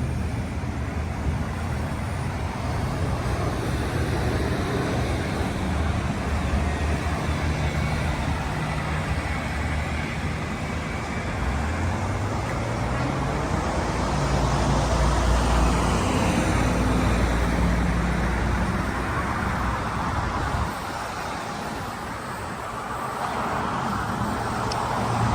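Steady road traffic and heavy vehicle engines running. About halfway through, one engine audibly rises in pitch as it revs up, and the noise eases off a little near the end.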